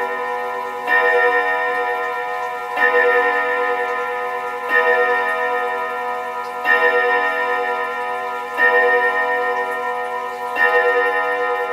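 Vintage Dutch Warmink wall clock striking the hour on its chime rods: six alike strikes about two seconds apart, each ringing on until the next.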